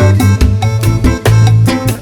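Background music in a Latin, salsa-like style, with a steady beat, a bass line and percussion.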